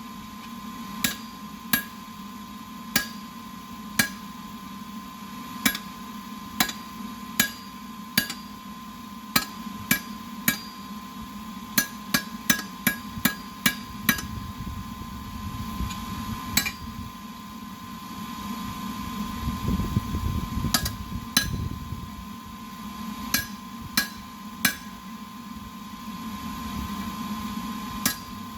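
Blacksmith's hammer striking hot metal on an anvil during forging, in irregular blows about a second apart. A quick run of blows comes about twelve seconds in, then a pause of several seconds, then more blows. A steady hum runs underneath.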